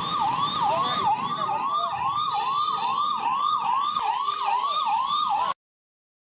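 Emergency vehicle siren in a fast repeating yelp, each cycle a quick swoop in pitch, about two and a half a second. It cuts off abruptly near the end.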